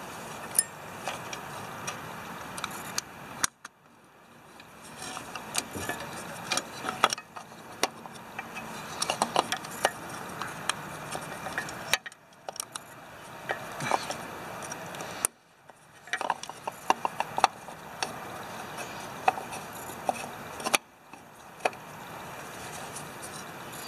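Hands working a distributor cap into place on a Ford 2600 tractor's distributor. Many scattered sharp clicks, taps and small rattles of the cap and its clips against the distributor.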